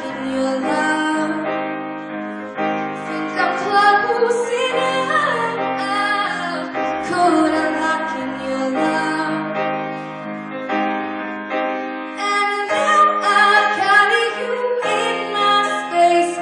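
A woman singing, with sustained and gliding notes that no words were picked out of, over piano accompaniment.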